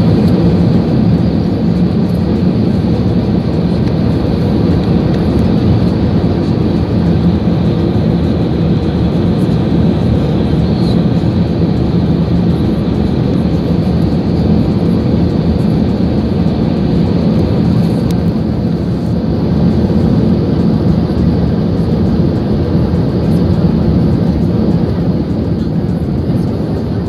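Airbus A380-800 cabin noise during the landing rollout: a loud, steady, deep roar of the engines and the aircraft rolling down the runway, heard from inside the cabin.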